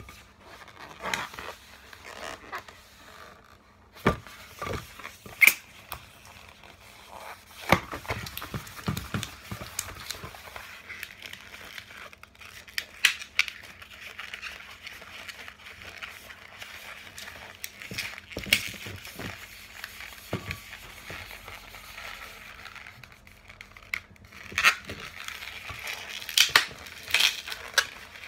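Long latex modelling balloon being twisted and worked by hand: irregular rubbery squeaks and rubbing, with scattered sharp clicks.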